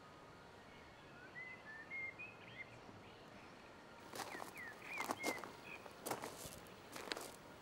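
Birds chirping faintly in short, gliding notes, sparse at first and then in a louder cluster of quick chirps through the second half.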